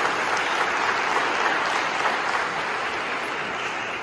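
Audience applauding, a dense steady clapping that begins to die down over the last second or so.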